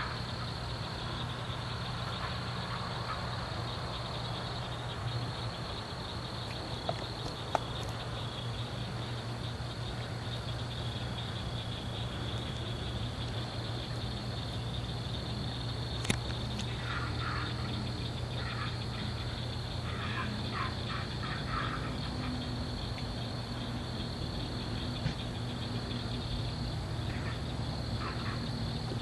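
Night chorus of crickets, a steady high trill, over a low steady hum. Short bursts of raspy, rapid animal calls come in clusters about two-thirds of the way through and again near the end, from an unidentified animal.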